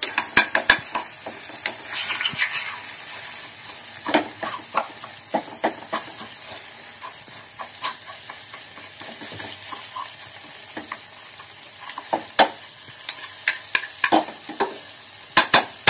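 Goat brain frying in hot oil in a steel pan, sizzling steadily, while a steel ladle stirs and breaks it up, clinking and scraping against the pan in several bunches of quick strokes.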